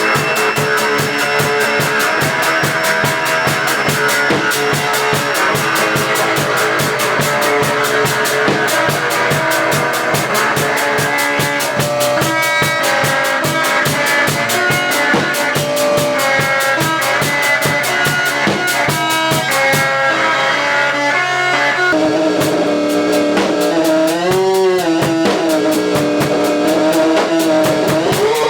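Guitar and drum kit jamming together, with fast, even drum hits. About two-thirds of the way through the drum hits drop out, leaving sustained tones that bend up and down in pitch.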